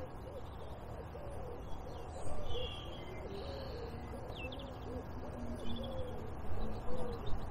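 A pigeon cooing in a long run of low, soft, repeated notes, with a few brief higher chirps from smaller birds about two and four and a half seconds in.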